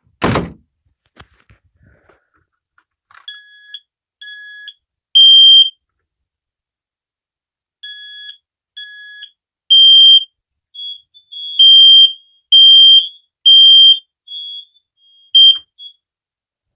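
A knock right at the start, then about three seconds in a smoke alarm sounds its high-pitched test beeps in groups of three with short pauses, the temporal-three fire pattern. Fainter, overlapping beeps from a second, interconnected alarm sound along until both stop shortly before the end.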